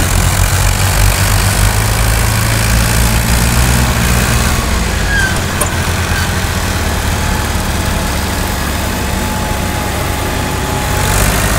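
Tractor diesel engines running hard under load, pulling a loaded trolley stuck in sand. The steady low engine sound eases somewhat after about four and a half seconds.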